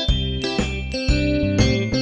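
Upbeat background music led by an electric piano or keyboard, with a steady bass and notes falling on a regular beat about twice a second.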